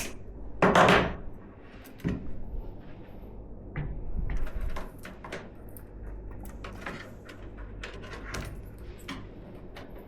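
Handling noises from assembling a PC: a loud half-second scrape or rush about half a second in, a knock near two seconds, then a run of small clicks and taps of parts and tools being handled.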